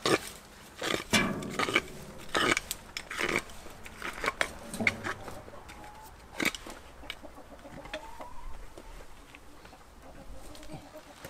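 Hens clucking while a spade digs and scrapes into stony garden soil, making a series of sharp knocks, most of them in the first few seconds.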